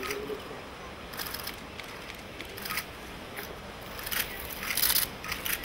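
Press camera shutters clicking in several short rapid bursts, the loudest bursts near the end.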